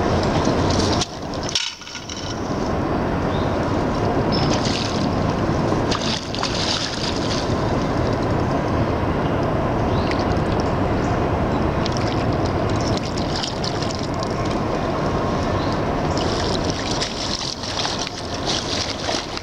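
Hooked steelhead thrashing and splashing at the surface close to the bank as it is played toward the net, over a loud steady rushing noise.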